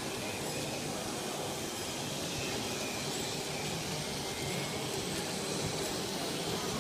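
Z-scale model train running on its track: a steady whir from the tiny locomotive's motor and the rolling of its freight wagons' wheels on the rails.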